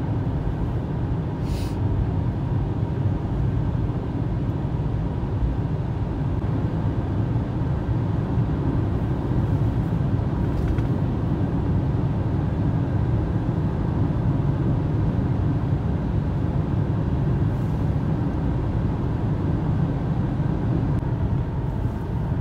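Steady road and engine noise heard inside a car's cabin while cruising at highway speed: an even low noise of tyres on asphalt with the engine underneath.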